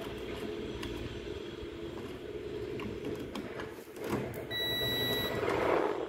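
Digital multimeter in continuity mode sounding one steady high beep of about a second, about two-thirds of the way in, which signals a closed circuit between its probes. Around it are small clicks and rustling of the test probes being handled on the fuse wiring.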